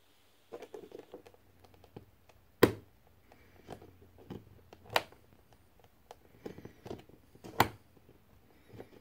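Small toggle switch on a model railroad layout being flipped by hand to throw a turnout. It gives three sharp clicks about two and a half seconds apart, with lighter fiddling clicks between.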